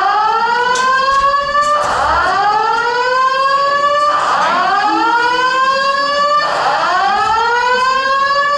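Fire alarm sounding a slow-whoop tone: a loud rising sweep that drops back low and climbs again about every two seconds.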